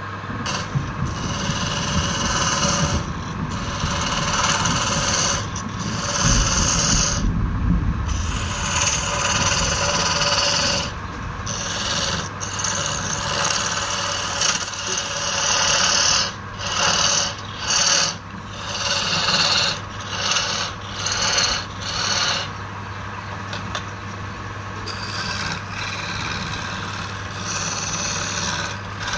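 Wood lathe running with a steady motor hum while a tool is held against the spinning wood, giving a loud scraping hiss. The hiss breaks off and comes back several times in the second half.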